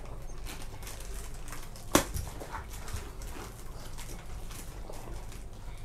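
Toddler sucking milk through a straw from a small carton: faint, scattered soft sucking clicks, with one sharp knock about two seconds in.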